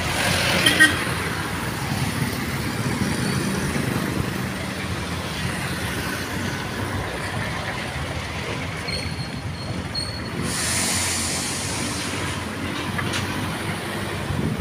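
Road traffic on a busy city road: the steady rumble of passing vehicles' engines and tyres. About nine seconds in a brief high whine sounds, followed by a short hiss.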